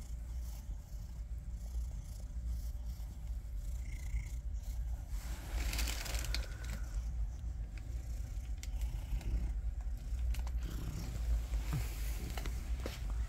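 A hand rubbing and scratching a cat's fur, rustling loudest about halfway through, over a low steady rumble, with a few light clicks near the end.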